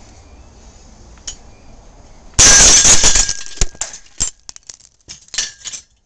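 Omega Pacific Classic straight-gate carabiner snapping under hydraulic load at about 32 kN: a sudden loud bang about two and a half seconds in, followed by sharp metallic clinks and rattles of the chain and broken pieces for the next few seconds.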